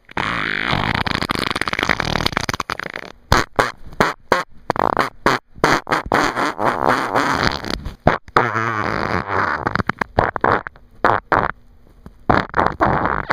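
Loud snoring with a rough, fluttering rattle that sounds fart-like, coming in uneven stretches of a second or two with short breaks.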